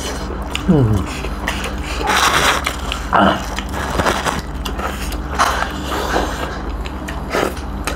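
People eating roast duck with their hands: short bursts of chewing and tearing meat off the bone, over a steady low hum. A brief falling vocal murmur comes about a second in.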